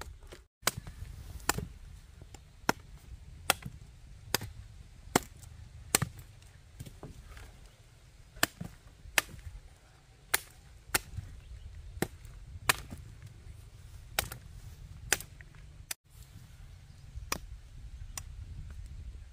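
Broad machete blade chopping cassava tubers off their stem, a series of sharp chops about one a second with short pauses between.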